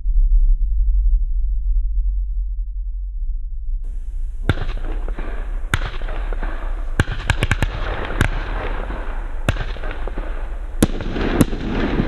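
Argento Saphir category F2 fireworks battery firing: after a low rumble, a series of sharp bangs starts about four seconds in, a few in quick succession, over a steady crackling hiss.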